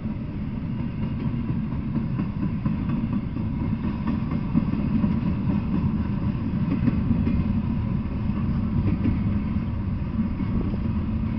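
Intermodal freight train passing, its container and trailer cars rolling by in a steady low rumble of steel wheels on the rails, with a few faint clicks.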